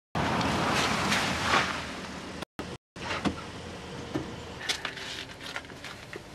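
A Range Rover driving past on a road, its engine and tyre noise loud for about two and a half seconds before it cuts off. After that it is quieter, with a few light clicks and knocks as a car door is opened.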